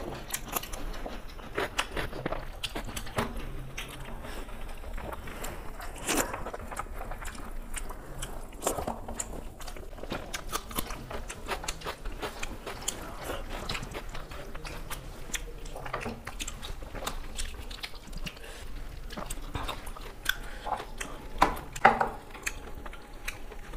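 Close-miked eating by hand: chewing and mouth smacks of rice and curry, with fingers mixing rice on the plates, heard as a scatter of short wet clicks.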